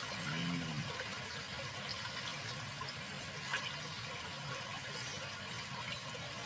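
Water sloshing and splashing as a male lion wades through a shallow channel, with scattered small splashes. A short low pitched sound comes about half a second in.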